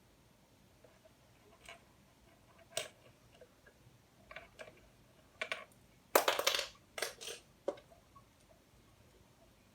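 Plastic LEGO Technic pieces being handled: scattered light clicks and taps, with a louder burst of rattling a little past halfway.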